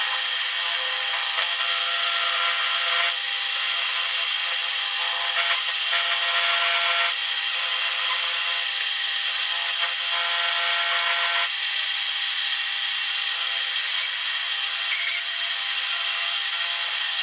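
A small high-speed power tool runs steadily on a piece of steel angle iron, its pitch shifting a few times as the load changes. A sharp click comes near the end, followed by a brief ringing sound.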